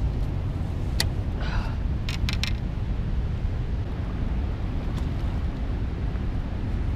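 Steady low rumble of wind on the microphone and rushing river water, with a few short clicks about one second in, a quick cluster around two seconds in, and one more near five seconds.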